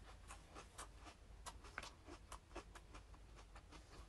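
Chewing crisp iceberg lettuce with the mouth closed: faint, irregular crunches, about three or four a second.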